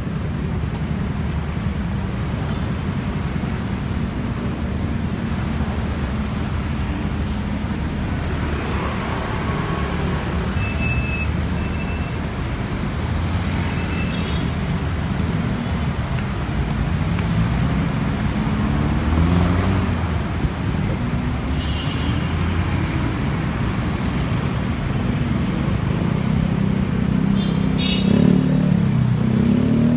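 Road traffic: vehicle engines running steadily, with an engine rising in pitch as it accelerates near the end.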